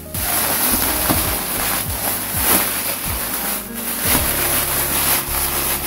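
Toasted dried laver sheets (gim) being crushed by hand inside a plastic bag: continuous crinkling and crackling of the plastic and the brittle seaweed.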